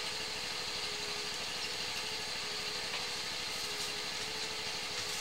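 Sewer hydro-jetter running steadily: its engine-driven high-pressure pump gives an even hiss with a steady hum, with no change in speed, as it jets roots out of a sewer main.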